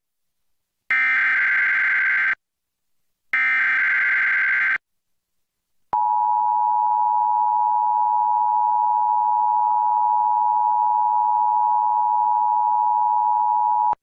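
Emergency Alert System test tones: two bursts of SAME header data, each about a second and a half with a short silence between, closing the three-burst header. About six seconds in, the EAS two-tone attention signal (853 and 960 Hz) starts and sounds steadily for about eight seconds, then cuts off.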